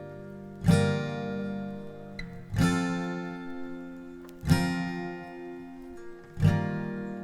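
Background acoustic guitar music: a chord is strummed about every two seconds and rings out, fading before the next.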